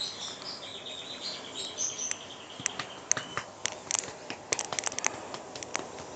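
Close handling noise as a hand strokes a dog lying on a bed: soft rustling with a run of sharp little clicks that come more often from about two seconds in. A faint high thin tone sounds in the first few seconds.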